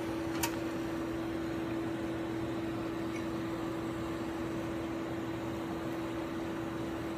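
Steady hum of running laboratory equipment with one constant mid-pitched tone, and a single light click about half a second in.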